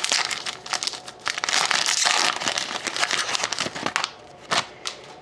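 Foil wrapper of an Upper Deck SP Authentic hockey card pack crinkling as it is snipped open with scissors and pulled apart: a dense run of crackles and sharp clicks that thins out near the end.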